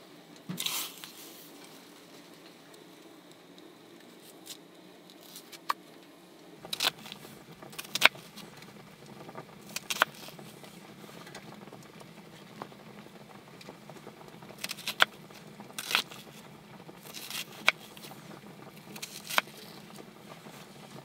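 Puukko knife slicing an onion held in the hand: crisp, crunchy cuts, one every second or two, starting about a third of the way in after a mostly quiet stretch.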